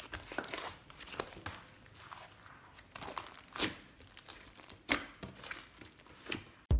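Slime mixed with makeup and soft clay being squished and stretched by hand, giving irregular sticky crackles, pops and clicks. Electronic music cuts in right at the end.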